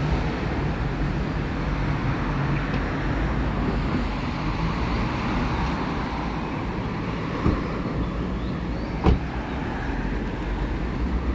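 Steady city street traffic: car and bus engines running and tyres on the road. Two sharp knocks about a second and a half apart near the end, the second louder.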